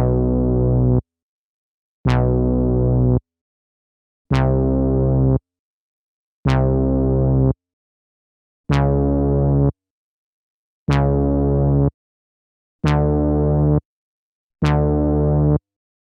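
Sampled synthesizer-type notes played back from an Akai MPC sampler: eight separate notes about every two seconds, each lasting about a second and stopping abruptly, with silence between them.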